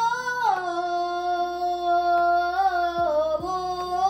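A child's voice singing a sustained, wordless 'oh' melody over a quiet backing track, holding each note and stepping down and back up in pitch a few times.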